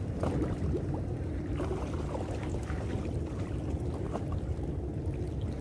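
Steady low rumble of harbour background noise, with a few faint scattered ticks.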